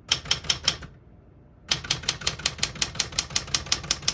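Keys of a 1976 Smith-Corona Galaxie Twelve portable manual typewriter being typed: a quick run of about five strokes, a short pause, then from about a second and a half in a steady run of keystrokes at about seven a second. The keys strike cleanly, none of them sticking.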